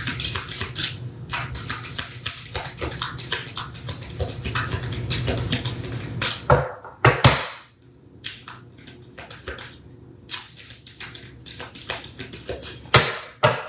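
A deck of oracle cards being shuffled by hand: a dense, irregular run of quick card flicks and clicks, with a couple of louder slaps a little past halfway.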